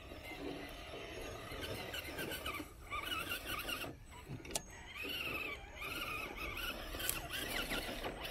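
Electric drivetrain of an RC rock crawler whining as it climbs, the pitch rising and falling with the throttle. There is a single sharp click about halfway through.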